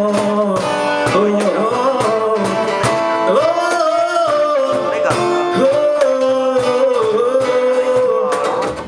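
A song performed by a band: a voice singing over guitar, with regular strums, the music breaking off right at the end.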